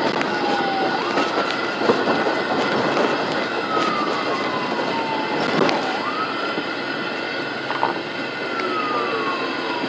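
Ambulance siren on a slow wail, its pitch sweeping quickly up and then falling slowly over about five seconds, twice, over steady engine and road noise from inside the moving ambulance.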